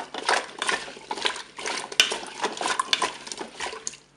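Wooden spatula stirring chunks of carrot in broth in a Cookeo multicooker's cooking bowl: a quick run of scrapes and knocks against the bowl with the liquid sloshing, stopping near the end.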